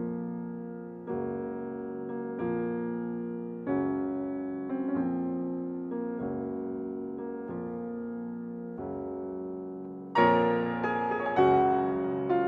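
Background piano music: slow held chords, a new one struck every second or so and fading, growing louder and brighter about ten seconds in.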